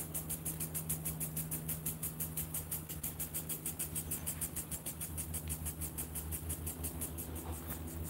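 Garden sprinkler ticking fast and evenly, about seven or eight ticks a second, over a steady low hum.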